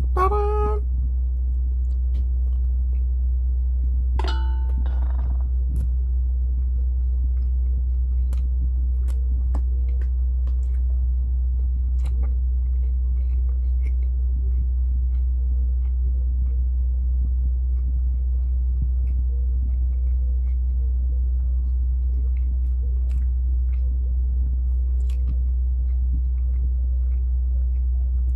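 A person chewing food with the mouth closed: faint scattered clicks and smacks over a steady low hum, which is the loudest sound throughout. Short vocal sounds come right at the start and again about four seconds in.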